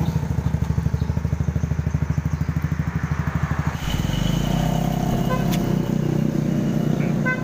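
Honda Supra GTR 150 single-cylinder four-stroke engine idling with a rapid, even pulsing beat, then opening up as the motorcycle pulls away about four seconds in. A heavy truck passing on the road adds a low steady rumble from then on.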